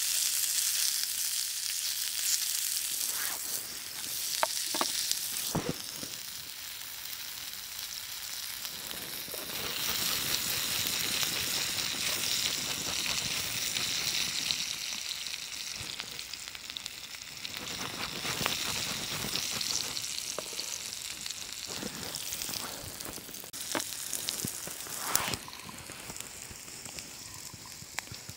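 Steady sizzling in a hot Stabilotherm Jägerpfanne iron pan, with a few short knocks and scrapes scattered through.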